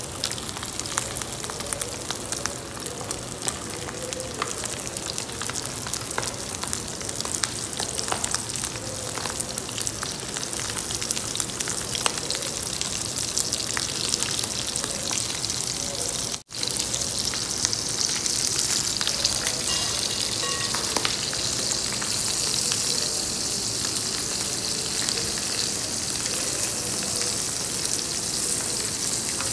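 Dried salted sapsap (ponyfish) frying in hot oil in a pan: steady sizzling with fine crackling spatter as more fish are laid in. There is a momentary break about halfway through.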